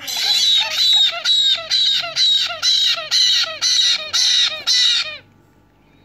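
Black-headed caique chick giving loud, high-pitched food-begging squawks in a steady rhythm, about two a second, while being spoon-fed formula; the calls stop abruptly after about five seconds.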